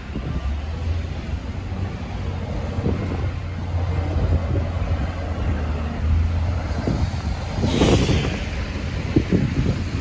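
Wind rumbling on a phone microphone over street traffic during a snowstorm, with a brief louder hiss about eight seconds in.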